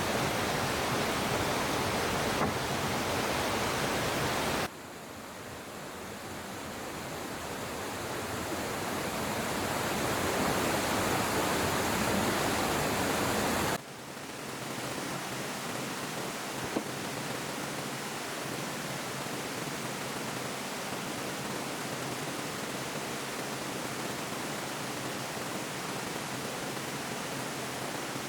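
Steady rushing noise like flowing water, with no tone or rhythm. It drops abruptly about five seconds in, swells gradually, then drops again about fourteen seconds in and holds steady.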